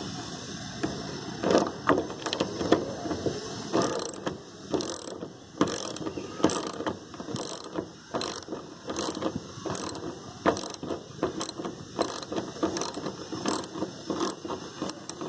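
Hand socket ratchet clicking in short repeated strokes, about one a second, as it undoes a side-mirror mounting bolt on a van door.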